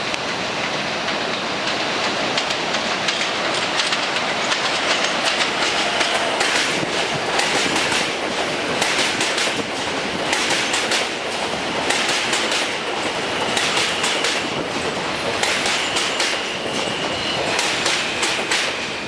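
An R160A/R160B New York City subway train running into the station, its wheels clicking in repeated clusters over the rail joints as the cars pass. A high wheel squeal comes and goes in the second half.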